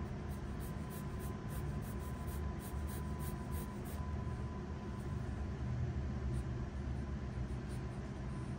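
A 4B graphite pencil scratching on sketch paper in short strokes, most busily in the first half, over a steady low hum.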